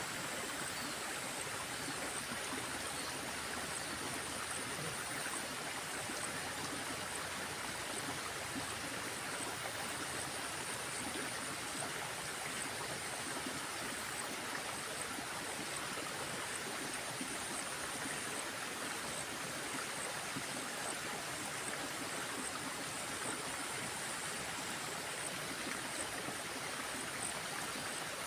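Water of a small stream flowing steadily, an even rushing with no breaks, with a faint high thin pulsing buzz above it.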